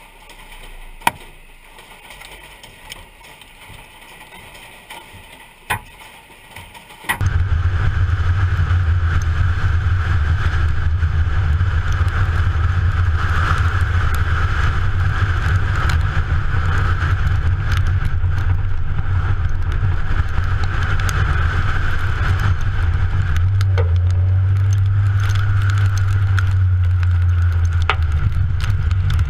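Quiet car interior with a few faint clicks, then about seven seconds in, loud steady driving noise cuts in: engine and road rumble of a car travelling down a highway, heard from inside the cabin.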